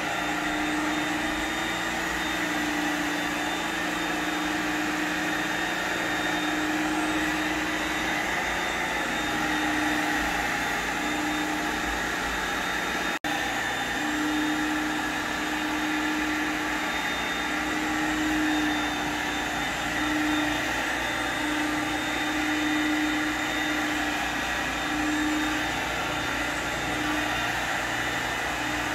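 Carpet-cleaning extraction wand steam-cleaning a polypropylene shag area rug, a steady rushing hiss of vacuum suction and spray, with a hum that keeps coming and going as the wand is worked. The sound breaks off for an instant a little before halfway through.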